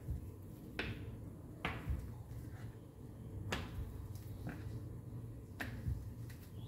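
Wooden rolling pin rolling out paratha dough on a cutting board, with sharp clicks about once a second as the pin knocks against the board, over a low steady hum.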